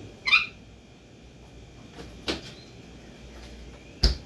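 Refrigerator door handled and shut: a light click about two seconds in, then a sharp thump near the end as the door closes. Just after the start there is a short, high, warbling squeak.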